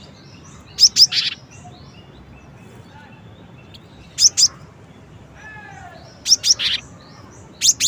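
Cinereous tit singing: four short phrases of two or three sharp, high notes, each phrase about a second and a half to two seconds after the last. Fainter, lower, falling notes sound between the third and fourth phrases.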